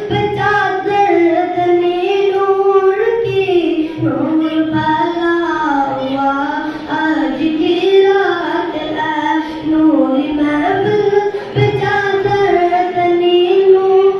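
A boy singing a naat, an Urdu devotional song, into a handheld microphone without accompaniment, in long melodic phrases whose pitch rises and falls.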